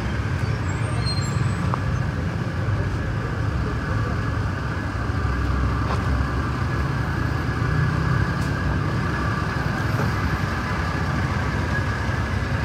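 Steady road traffic: a continuous mix of vehicle engines and tyre noise from passing traffic.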